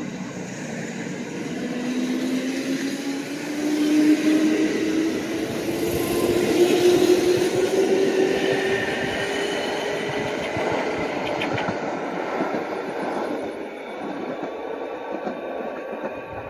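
Kintetsu commuter electric train pulling out past the platform: its traction motors whine, rising steadily in pitch for about ten seconds as it accelerates, over the noise of wheels on rail. The sound is loudest as the cars go by and fades as the train leaves.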